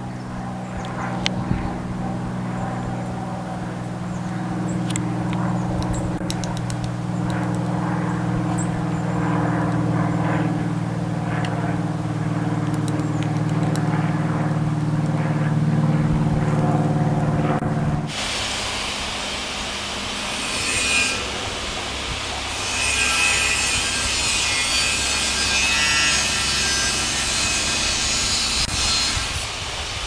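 A steady low mechanical hum, with scattered light taps and clicks over it. About eighteen seconds in, the sound cuts abruptly to a steady high hiss with faint thin whining tones.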